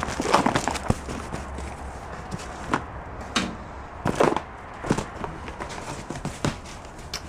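Rummaging through a cardboard box of household items: rustling and a scatter of short knocks and clunks as things are moved and lifted out.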